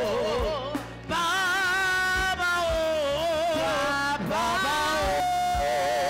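Gospel worship song: a high female voice sings long, drawn-out "Papa, oh" notes with heavy vibrato and melismatic runs over steady keyboard backing.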